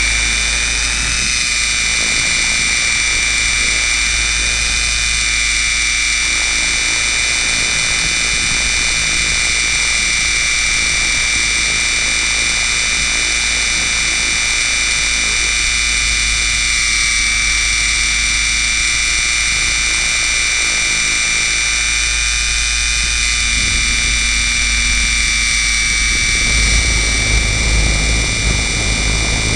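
R/C helicopter's motor and rotor drive running steadily with a high whine, picked up by the camera mounted on the helicopter. The low rumble grows louder near the end as it takes off.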